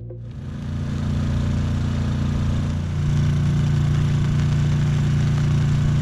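A steady, engine-like hum with a hiss of noise over it. It swells during the first second, and its low tone grows stronger about three seconds in.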